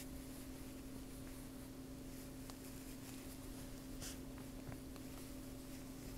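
Faint rustling of yarn and a few soft ticks from a crochet hook as yarn is worked through the loops, over a steady low hum.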